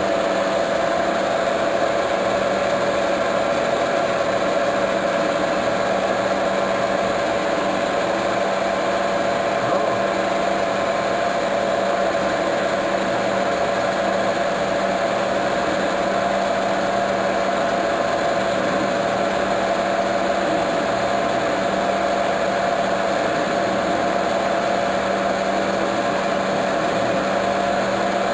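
Metal lathe running steadily, a constant hum with a steady whine, while the tool cuts a thread relief groove in the spinning workpiece.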